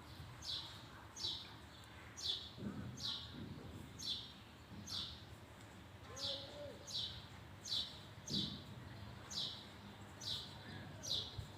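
A small bird chirping over and over, a short, high, falling chirp about every 0.7 seconds at a steady pace.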